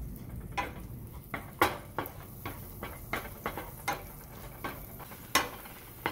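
A wooden spatula stirring garlic cloves in a nonstick frying pan, tapping and scraping the pan in a string of irregular light knocks, about two or three a second. The butter sizzles faintly underneath.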